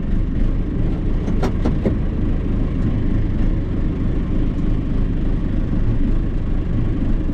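John Deere 2755 tractor's four-cylinder diesel engine running steadily, heard from inside the cab, with a few light clicks about one and a half seconds in.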